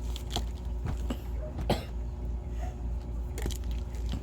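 Handling noise from opening and trying out boxed skincare products: a few short clicks and taps, the loudest about a second and a half in, over a steady low hum.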